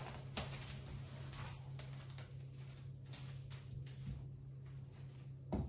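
Plastic cling film being pulled off its roll and stretched out, with faint crinkling and rustling over a steady low hum, and a louder bump near the end.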